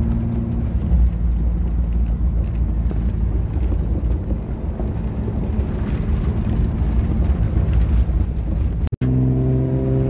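A car driving over a gravel road, heard from inside the cabin: the engine runs steadily under a heavy low road and tyre rumble. The sound cuts out for a moment near the end.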